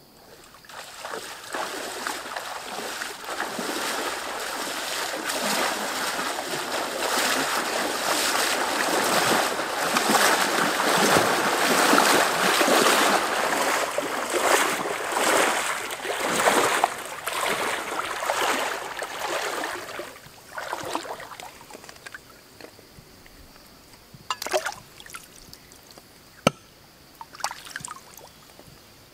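People wading through a shallow, muddy stream: steady splashing and sloshing of water that swells to its loudest in the middle and dies away about two-thirds of the way through. A few sharp clicks follow near the end.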